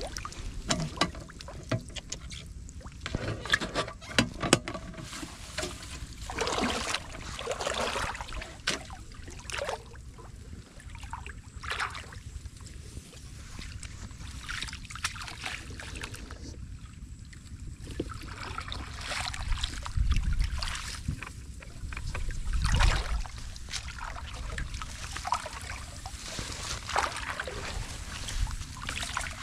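Shallow muddy water splashing and sloshing in irregular bursts as a woven bamboo basket is pushed and scooped through it and legs wade in it.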